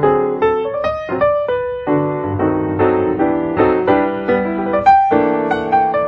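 Background instrumental music: a melody of struck notes over chords.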